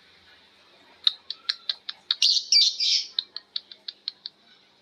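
Lovebird giving its long chattering 'ngekek' call. After about a second of quiet comes a run of sharp, shrill chirps that bunch into a dense, loud burst midway, then slow to an even series of about six short calls a second before stopping near the end.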